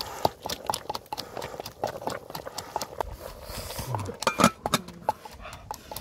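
Pot of water boiling over a wood fire, with many small crackles and pops, then the metal lid set on the pot with a clank about four and a half seconds in.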